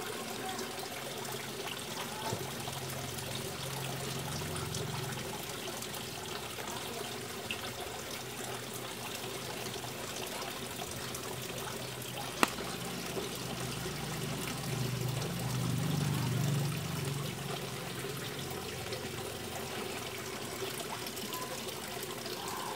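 Water trickling and splashing steadily in a koi fry tank, where the surface is churned white. A low rumble swells twice, and there is one sharp click about halfway through.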